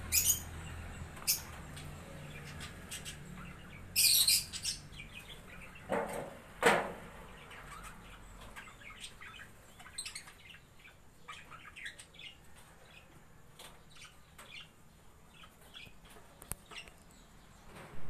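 African lovebirds chirping and squawking, with short sharp calls scattered throughout. A loud burst of calls comes about four seconds in, and two louder, fuller sounds follow around six and seven seconds in.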